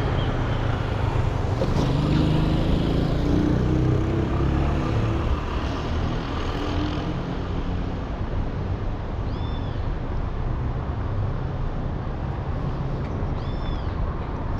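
Steady road traffic on a city avenue, with one vehicle's engine passing in the first few seconds. Two short high chirps come later on.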